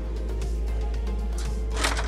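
Background music with a steady low bass and held tones. A single brief hiss cuts through near the end.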